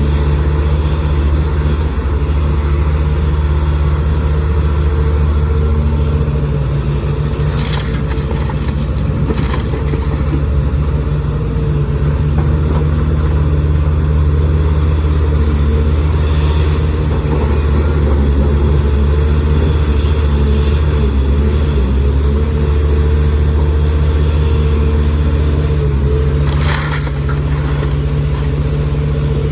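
Heavy machine's diesel engine running steadily with a low hum, with a few short sharp noises over it, such as clanks or squeaks.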